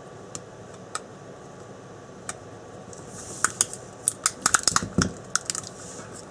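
Handling clicks and taps as a rebuilt cordless drill battery pack is pressed into its hard plastic casing: a few single clicks at first, then a quick flurry of clicks in the second half.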